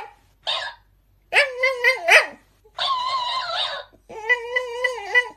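A Shiba Inu vocalizing in about four short bouts of a second or so each: wavering, high-pitched calls with brief pauses between them.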